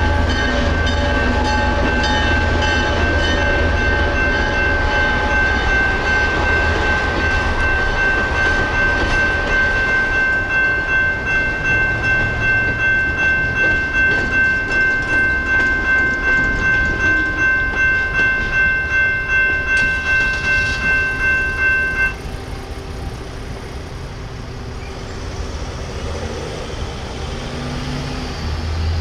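General Signal Type 2 electronic crossing bell ringing with a steady, rapid pulse, over the low rumble and wheel clatter of a passing train that fades within the first several seconds. The bell cuts off suddenly about 22 seconds in, leaving only quieter road noise.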